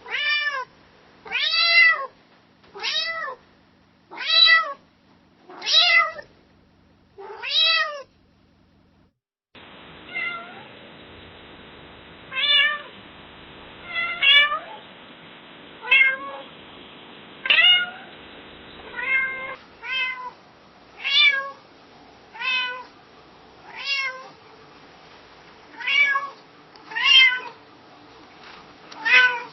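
Domestic cat meowing over and over, about one meow every one and a half seconds, each rising then falling in pitch. First six clean meows, then a short gap, then two more runs of meows over a steady background hiss.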